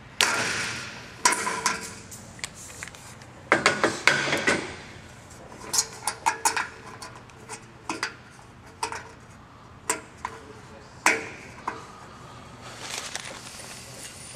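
Metal tools striking the sheet-steel body of a light fixture while a hole is punched through it: a dozen or so irregular sharp metallic knocks and clanks, the first the loudest with a ringing tail, and a quick run of strikes about three and a half seconds in.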